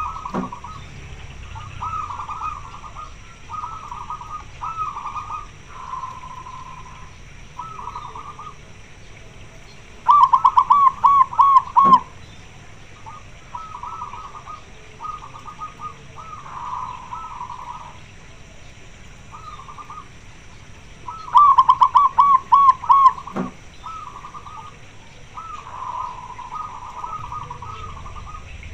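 Zebra doves (perkutut) cooing in repeated staccato phrases. Two loud close runs of fast coo notes come about 10 and 21 seconds in, the call of a female calling for a mate.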